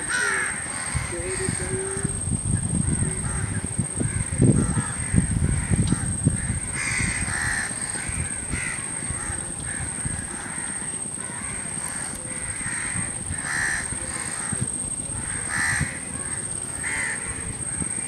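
Crows cawing repeatedly, harsh calls coming in clusters throughout. Underneath runs a low rumble, strongest about four to six seconds in, and a steady high-pitched whine.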